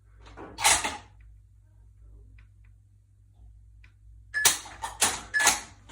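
Sharp metallic clacks of a precision rifle being handled in a dry-fire drill with snap caps. One clack comes about half a second in, then a quick run of four comes near the end, some with a brief high ring.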